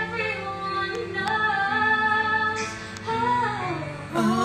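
A song playing: a high singing voice holds long notes, gliding down about three seconds in, over a steady backing.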